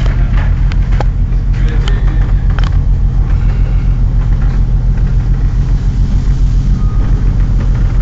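Ship's engine running steadily with a low, even throbbing drone, heard on board. A few sharp clicks or knocks in the first three seconds.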